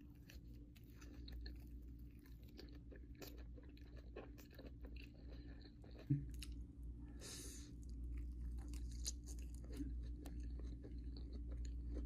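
Close-miked chewing of a mouthful of sushi, with many small clicks and smacks. A single sharp knock about six seconds in is the loudest sound, and a brief hiss follows about a second later.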